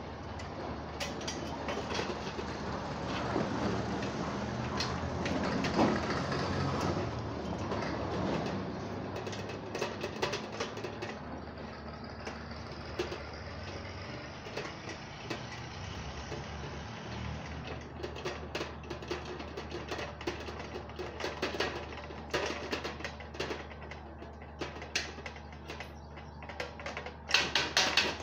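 Scattered light clicks and taps of aluminium sliding-window sash parts being handled and fitted together, over a steady engine-like rumble that eases off about ten seconds in. A quick run of sharper clicks comes near the end.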